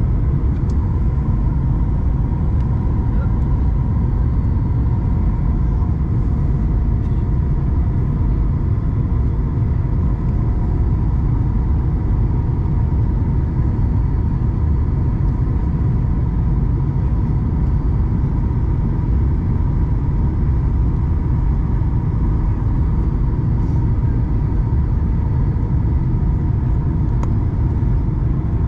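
Steady cabin noise of a Boeing 737 MAX 8 on approach, heard from a seat beside the wing: a deep rumble of airflow and its CFM LEAP-1B turbofan engine with a steady hum running through it.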